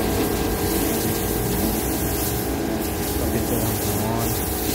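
Car-wash pressure washer running steadily: a continuous pump hum under the hiss of water spray.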